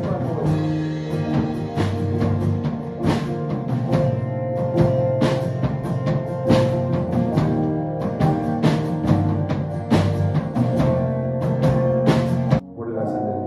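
Small worship band rehearsing: electronic keyboard chords with acoustic guitar over a steady drum beat. The music drops off suddenly near the end, and quieter playing follows.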